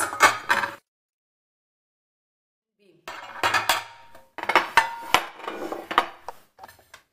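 Glass bakeware clinking and knocking as a rectangular glass loaf dish is lifted out of a nested stack of glass dishes and set down, with a couple of short glassy rings. The sound breaks off for about two seconds near the start.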